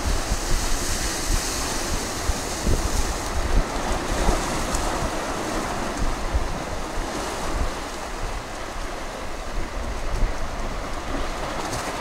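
Sea waves breaking and washing in among shoreline rocks, a steady surf noise that swells and eases, with wind rumbling on the microphone.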